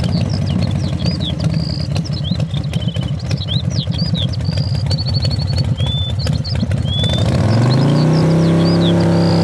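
An engine chugging roughly, then revving up about seven seconds in and holding a higher, steady pitch. Small birds chirp and whistle throughout.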